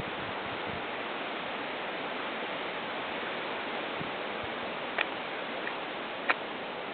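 Steady rushing noise of strong wind, with two sharp ticks about five and six seconds in.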